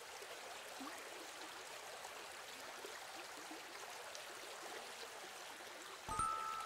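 Faint, steady outdoor ambience hiss with a few small ticks. About six seconds in, a low thump and a held two-note tone come in: a film-score sting.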